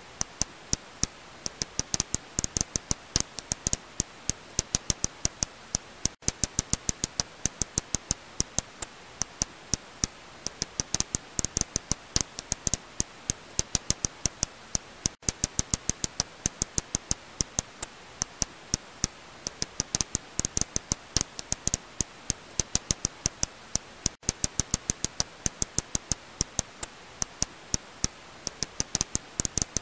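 Serotine bat echolocation calls, heard as a fast, uneven train of sharp clicks, several a second, over a faint steady hiss.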